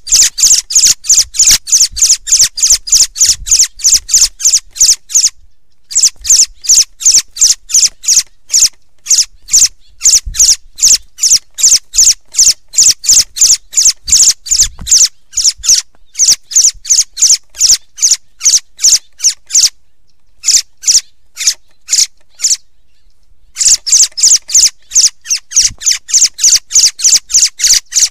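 Austral thrush (zorzal) calling: a fast, even series of sharp high notes, about four a second, broken by a few short pauses.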